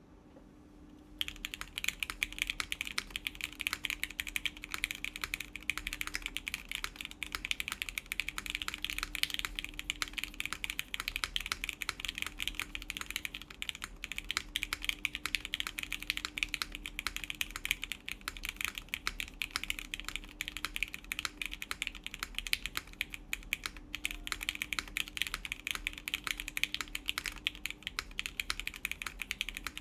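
Fast, continuous typing on an Etar87 mechanical keyboard in bottom-mount configuration, with lubed Gateron Yellow milky-top linear switches, 65 g springs, a full aluminum plate and JCS keycaps. Dense keystroke clacks start about a second in and run on without pause.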